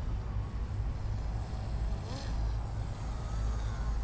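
Strong wind buffeting the microphone with a low rumble. Over it is the faint whine of a radio-controlled model plane's motor in flight, its pitch rising and falling about two seconds in.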